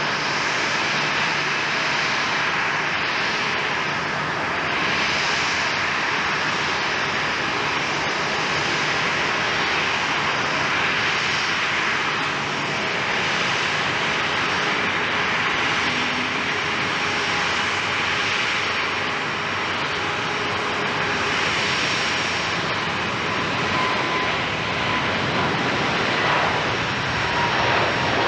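Boeing 777-300ER's twin GE90 turbofans running at high thrust as the airliner accelerates down the runway on its takeoff roll. A steady, dense jet noise with a faint whine that grows near the end.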